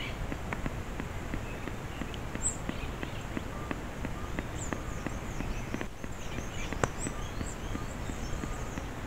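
Outdoor ambience of faint, high chirps and twittering from small birds, mostly in the second half, over a steady low background with many light scattered ticks and one sharper click about two-thirds through.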